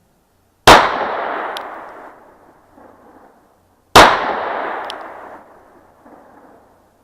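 Two pistol shots from a Glock 43 9 mm subcompact firing 115-grain standard-load ammunition, about three seconds apart. Each crack is followed by a long echoing tail.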